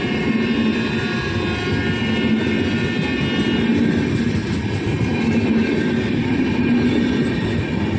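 Red-and-grey LHB passenger coaches of an Indian Railways train rolling past at speed: a loud, steady rumble of wheels on rail. A high ringing of several steady tones sits over it and fades out about halfway through.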